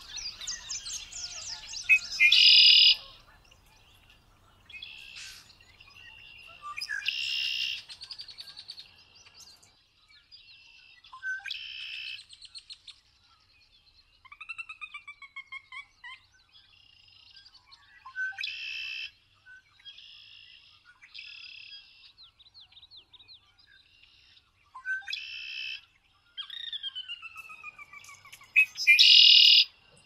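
Male red-winged blackbird singing: six songs, each ending in a loud buzzy trill, come every four to six seconds. A couple of falling whistles and short calls sound between them.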